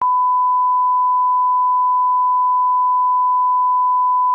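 A loud, steady test tone: a single pure beep held unbroken, starting abruptly. This is the line-up reference tone laid at the head of a video.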